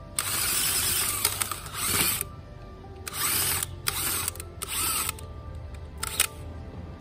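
Power drill spinning a spiral garden auger into the bed's soil to bore a planting hole: one run of about two seconds, then several short bursts, the last a little before the end. Background music plays throughout.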